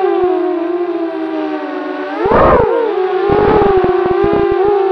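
Eachine Falcon 250 quadcopter's brushless motors and propellers whining in flight. The pitch wavers with the throttle and swells sharply up and back down about halfway through. Bursts of wind buffet the microphone at that swell and again through the later part.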